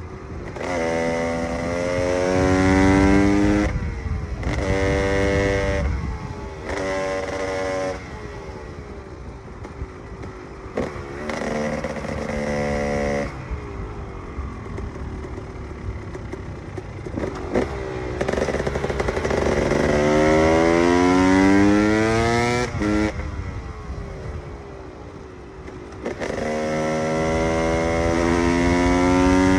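KTM EXC 300's single-cylinder two-stroke engine being ridden hard, opening up in repeated bursts with the pitch climbing as it accelerates, then falling back to a lower, rougher off-throttle sound between bursts.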